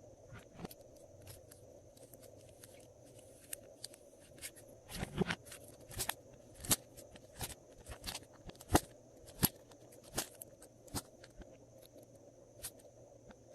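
Glossy slime being mixed and squeezed by hand, giving sharp, wet clicks and pops, sparse at first, then coming about once or twice a second before thinning out near the end.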